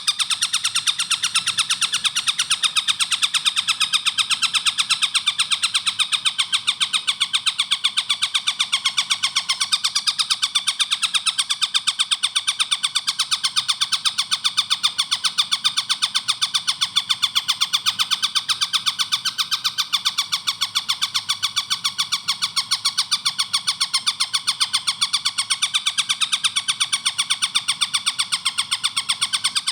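Tengkek buto kingfisher calling in a fast, tightly spaced, even run of clear, shrill notes that goes on without a break.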